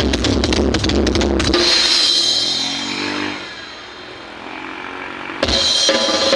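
Music with a heavy drum beat and bass played through homemade line array speakers with JBL 12-inch drivers. It drops to a quieter break about two seconds in, and the full beat kicks back in suddenly near the end.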